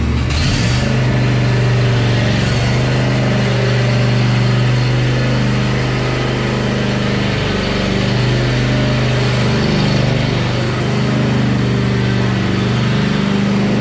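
John Deere E120 lawn tractor engine running: it picks up speed right at the start, then runs steadily with small wavers in pitch. It is running on a newly fitted battery that replaced a weak one that had been leaving the mower hard to start.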